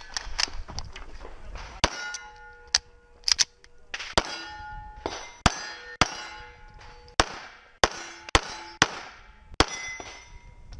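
9mm CZ Shadow 2 pistol firing more than a dozen rapid shots at irregular intervals, about half a second to a second apart, at steel targets. Many shots are followed by the ring of a hit steel plate.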